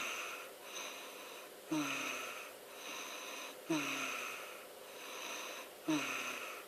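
Strange whistling snoring. Each breath opens with a short snort that drops in pitch, then trails into a long, airy, wheezing whistle. It repeats about every two seconds.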